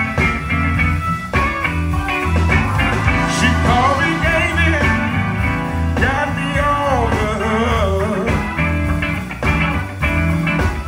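Live blues band: electric guitar playing lead with bent notes over electric bass and drums.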